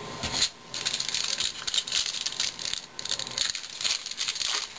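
Rustling and scraping of 2011 Topps baseball cards and a foil-wrapped card pack being handled and slid across a tabletop, in uneven spells with brief pauses.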